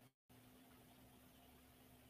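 Near silence: room tone of faint hiss and a steady low hum, which cuts out completely for a fraction of a second near the start.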